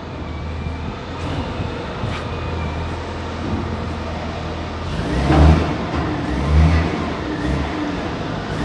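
Linde reach stacker's diesel engine running steadily, then revving up in two short surges from about five seconds in.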